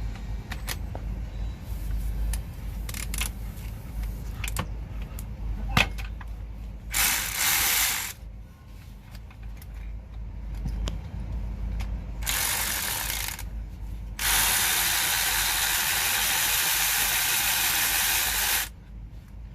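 Power ratchet running in three bursts, the last and longest about four seconds, undoing bolts; scattered tool clicks come before the first burst.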